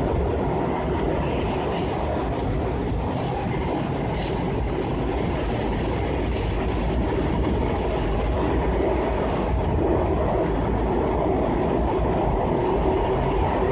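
Washington Metro Orange Line train running at speed, heard from inside the car: a steady rumble of wheels on the rails, with a faint high whine in the middle.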